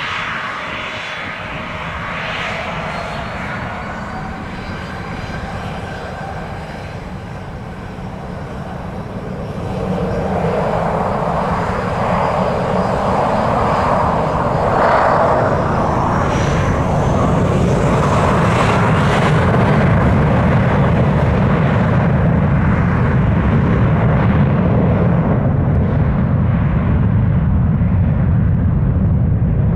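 A United Boeing 737's twin jet engines spooling up to takeoff power as it begins its takeoff roll. A whine climbs in pitch over the first twenty seconds, and the deep roar grows louder about ten seconds in and then holds steady.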